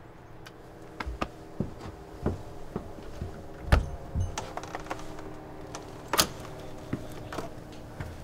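Movement and handling at a wooden front door: scattered light clicks and knocks, the sharpest about six seconds in, over a faint steady hum.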